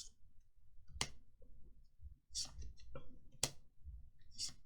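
Magic: The Gathering trading cards being handled and flicked through by hand: a handful of short, sharp clicks and snaps, about a second apart.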